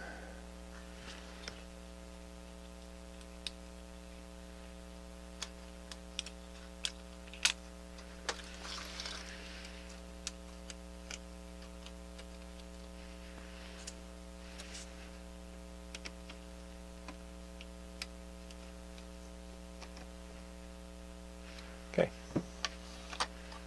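Scattered small clicks and taps of plastic parts being handled and snapped into place as a Denon DCD-695 CD loading mechanism is reassembled, with a couple of soft rustles of the ribbon cable and handling; a steady low electrical hum underneath.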